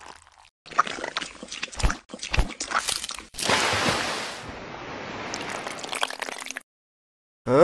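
Wet squelching and crackling foley of mud for about three seconds, then a steady rush of muddy water flowing and splashing for about three seconds that cuts off suddenly. A brief loud sound with a rising pitch comes near the end.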